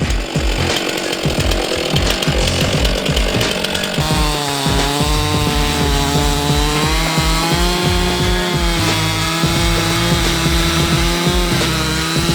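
Two-stroke chainsaw running under load as it rips lengthwise through a log, its engine pitch sagging and recovering as the chain bites.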